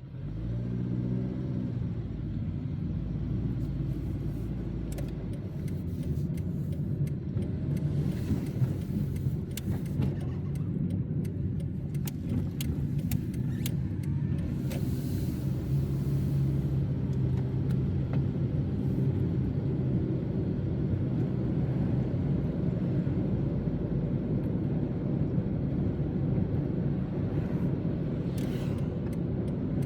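Car engine and tyre noise while driving; the engine comes in suddenly at the start with its pitch rising as the car pulls away, then runs as a steady low rumble.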